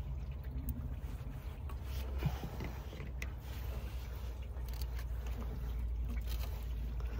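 Faint handling noises, a few light clicks and scrapes, as rubber coolant hoses are worked onto the pipe fittings of a transmission fluid cooler, over a steady low hum.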